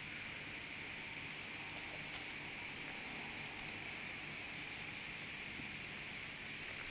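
Faint outdoor ambience: a steady hiss with many small, high bird chirps throughout, and a single light click about six seconds in.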